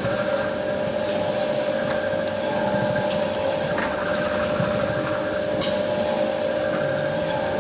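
Coconut-sap cooking machine running steadily: a constant mechanical hum with an even rumble beneath it and a few faint clicks.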